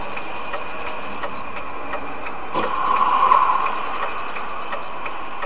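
Steady rhythmic ticking, about three ticks a second, over an even background hiss. The hiss swells louder for about a second near the middle.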